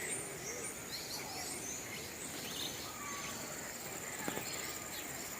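Aviary ambience: many birds chirping and calling in short, quick notes over a steady high-pitched drone, with faint murmur of distant voices and a single click near the end.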